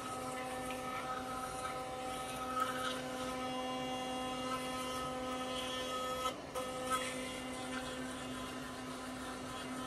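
Sonic electric toothbrush buzzing steadily while brushing teeth, with a brief break in the buzz about six seconds in.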